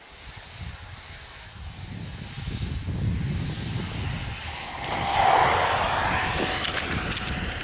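Kingtech K80G2 model jet turbine of an RC jet whining as the plane approaches low, growing louder to a peak about five seconds in and then fading as it goes by. The high whine dips slightly in pitch after about six seconds.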